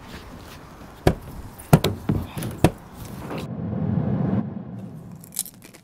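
Several sharp knocks and thumps of a person clambering over a painted metal wall, then a low rumbling swell that builds about three seconds in and fades away, with one last click near the end.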